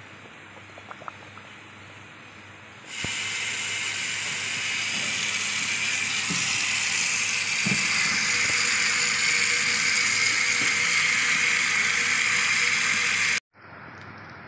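Tap water running in a steady stream onto leafy vegetables in a plastic colander, starting suddenly about three seconds in and cutting off abruptly near the end. Before it, a quieter stretch of a pot of boiling water with a few light clicks from metal tongs.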